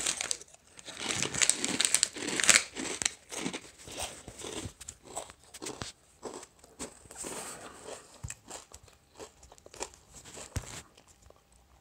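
Crinkling of a plastic snack bag as a snack is tipped from it into the mouth, then crunchy chewing. The crunches are dense at first and grow softer and sparser toward the end.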